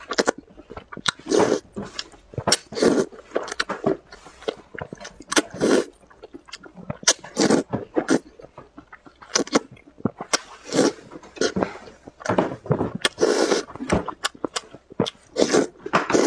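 A person slurping spicy glass noodles, sucking the strands in with short, wet bursts that come in quick, uneven succession, about one or two a second.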